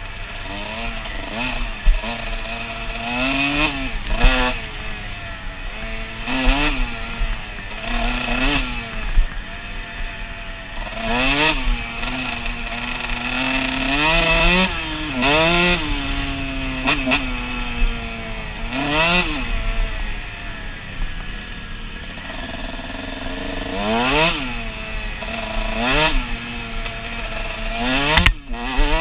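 Dirt bike engine revving up and falling back over and over, every second or two, as the rider opens and closes the throttle along a bumpy trail.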